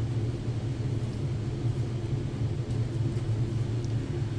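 Steady low background hum with no clear events.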